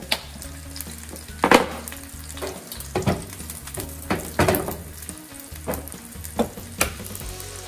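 Oil and kimchi fried rice sizzling in a hot cast-iron skillet, with about eight short scrapes and knocks as the skillet is handled.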